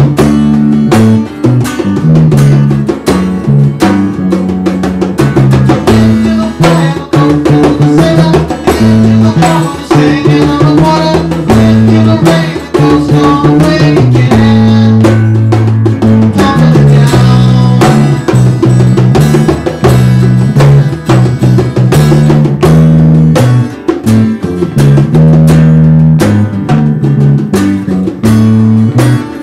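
A small band playing: strummed acoustic guitar, electric bass guitar and a hand drum struck with the palms, with a male voice singing the lead part at times.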